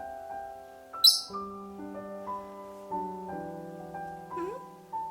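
Soft piano music with held notes. About a second in, a pet lovebird gives one short, loud, high-pitched chirp.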